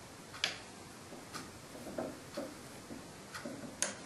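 Irregular light clicks and knocks of hands handling the SailingGen water generator's metal mounting flange and bracket while the turbine is being dismantled, with two sharper clicks about half a second in and near the end.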